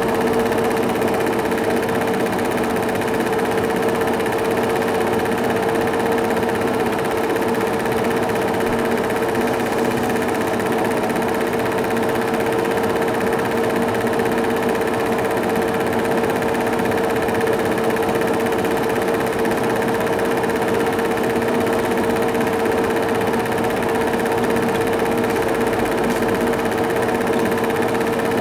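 Film projector running: a steady mechanical whirr with a constant hum tone that never changes.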